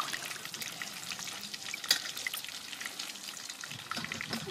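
Water sloshing and trickling in a metal basin as hands rub and rinse tomatoes and peeled onions, with small splashes and ticks of vegetables knocking.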